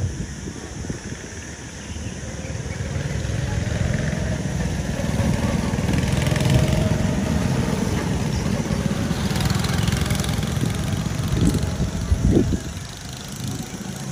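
Go-kart engines running as karts drive round the track, growing louder about two seconds in as they come closer. Near the end an engine briefly rises in pitch as a kart passes close by.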